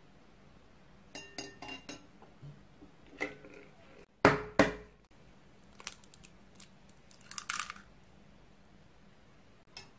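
Spiral wire egg separator and eggs clinking against glass mixing bowls in a run of small clicks, with two sharp knocks, the loudest sounds, a little before the middle. A short crackle of eggshell being broken open over the separator follows, with a last small click near the end.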